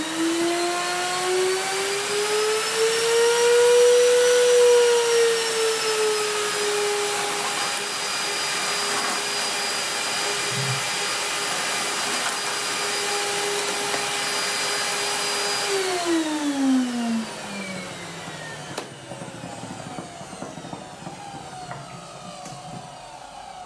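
Genesis Hydrovac Plus canister vacuum cleaner's motor starting and spinning up to a high whine. Its pitch eases a little lower a few seconds in and holds steady, then it is switched off about 16 seconds in and winds down to a stop.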